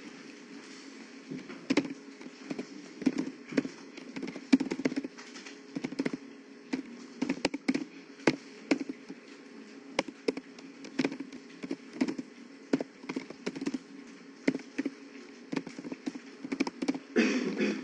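Computer keyboard typing: quick, irregular keystroke clicks as code is entered, over a low steady hum, with a brief louder noise near the end.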